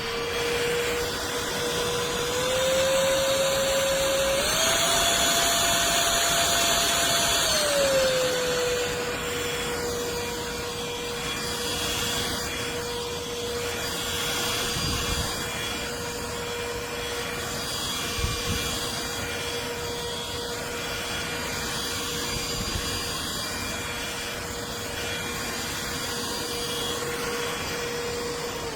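Trucozie cordless stick vacuum running with a steady high motor whine. Its pitch steps up twice in the first few seconds, drops back about eight seconds in, then holds steady until it starts to wind down at the very end. A couple of faint knocks are heard partway through.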